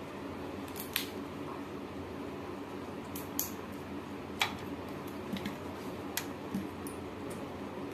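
Eating sounds: a handful of sharp crunches from bites of crisp fried papad, with soft squelching of rice being mixed by hand on a steel plate, over a steady low hum.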